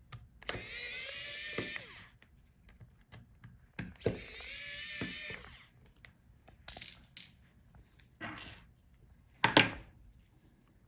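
Small electric screwdriver running twice for about a second and a half each, backing out tiny screws from a laptop's palmrest, followed by a few sharp clicks and a louder knock near the end.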